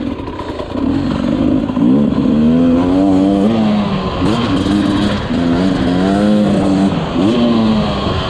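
Dirt bike engine revving as it is ridden, its pitch climbing and then dropping back sharply several times.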